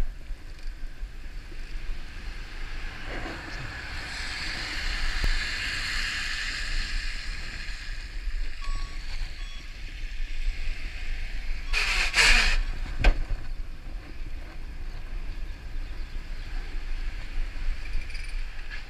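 Rushing wind on the handlebar camera and road-bike tyres hissing on wet asphalt. A minibus overtakes close by, with its sound falling in pitch as it passes, and a short, loud hiss about twelve seconds in.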